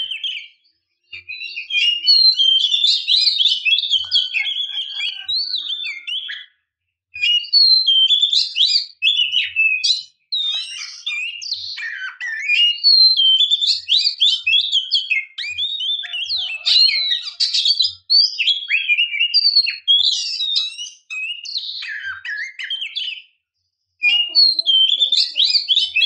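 Oriental magpie-robin singing a fast, varied run of high whistles, chirps and trills, in phrases broken by several short pauses.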